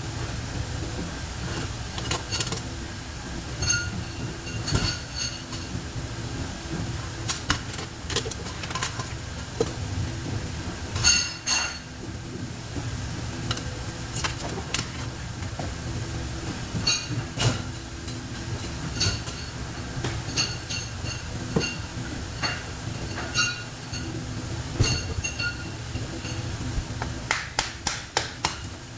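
Metal tools clinking and tapping on metal motor parts during dismantling: scattered sharp clinks that ring briefly, with a quick run of taps near the end, over a steady low hum.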